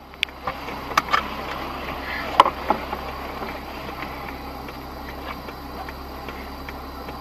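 A car's indicator relay ticking evenly, about two ticks a second, over the low steady hum of a stopped car, heard from inside the cabin. A few sharper clicks and knocks come in the first three seconds.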